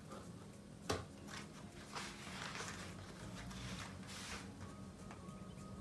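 Craft knife and hands working a sheet of light cardstock: a sharp tap about a second in, then a couple of seconds of paper rustling as the sheet is moved.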